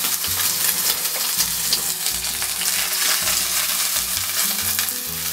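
Entrecôte steak searing in ghee in a very hot pan on high heat: a steady, loud sizzle full of fine crackles and spits, the sound of the meat browning hard (the Maillard stage).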